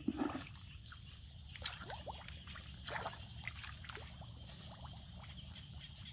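A spade on a metal pipe handle chopping into a waterlogged mud bank, giving a few short wet squelches and splashes, with water trickling.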